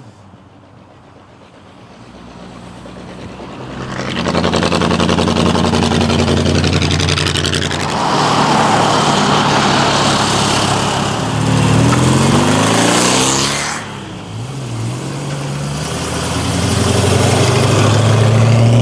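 V8 muscle car engines revving and accelerating, building from quiet after the first second or two. About eleven seconds in, the engine note climbs steeply through the revs, drops near fourteen seconds, then builds again to a loud low rumble near the end.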